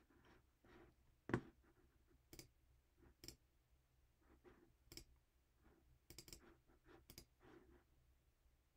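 Faint, scattered clicks of a computer mouse, roughly one a second and some in quick pairs, the sharpest a little over a second in, over quiet room tone.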